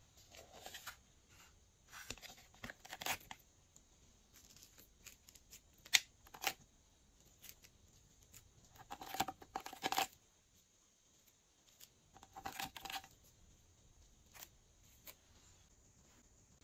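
Thin plastic chocolate-bar mold crackling and clicking as it is flexed and the soft bars peel out of it onto slime, in scattered short bursts with quiet gaps between.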